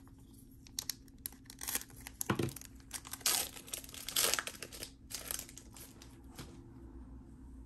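2020 Panini Prizm football blaster box packaging being torn open and crinkled by hand, in irregular crackles and rustles. They are loudest about three to four seconds in and thin out near the end.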